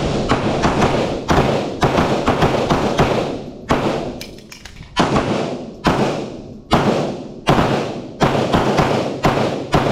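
9mm pistols fired in rapid strings with sharp reports echoing. A dense, overlapping volley comes first, then a short lull about four seconds in, then single shots at a steady pace of a little over one a second.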